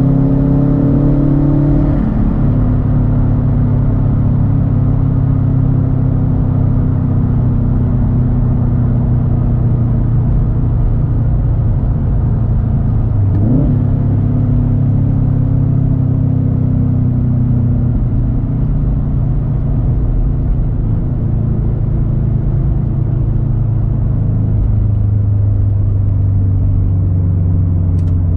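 A 2013 Subaru WRX STI's turbocharged 2.5-litre flat-four runs loud through a Tomei Expreme Ti exhaust while driving at fairly steady revs. The engine note drops sharply about two seconds in, and dips and recovers briefly near the middle.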